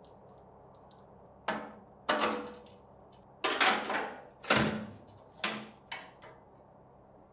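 A series of about six sharp clanks spread over five seconds, each ringing briefly before dying away, the loudest near the middle.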